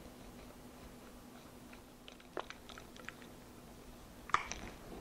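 Faint, soft scraping and squishing as a spatula scrapes thick cream cheese mixture out of a glass mixing bowl onto brownie batter in a metal pan, with a couple of light clicks, over a low steady hum.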